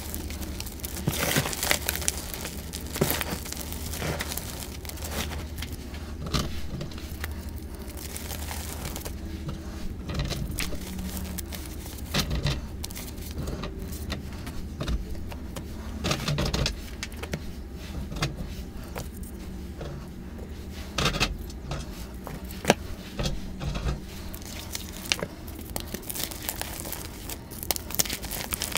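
Dyed gym chalk crushed and rubbed between hands: soft powdery crunching and crackling, with louder sharp crunches scattered through.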